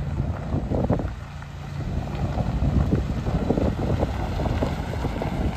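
2009 Ford F-350 pickup driving slowly over gravel: the engine runs steadily under the crunch and crackle of its tyres on the loose gravel. Wind buffets the microphone.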